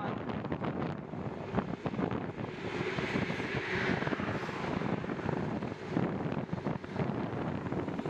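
Wind buffeting the microphone of a bicycle-mounted camera while riding, a steady rushing roar broken by rapid gusty thumps. A broader rushing swell rises and fades in the middle.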